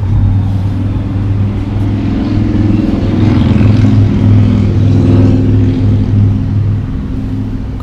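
An engine running with a low, steady hum, swelling a little in the middle and easing toward the end.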